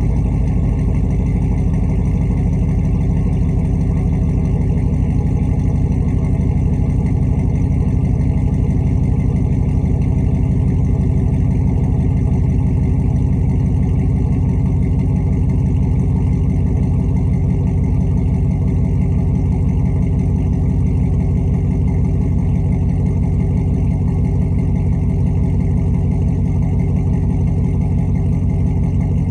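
Stock 6.0-litre LS V8 idling steadily as it warms up from a cold start.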